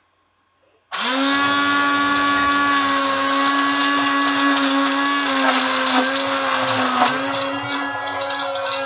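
Food processor motor starting about a second in and running at a steady whine, whisking egg whites and whey protein into a smooth, bubbly batter.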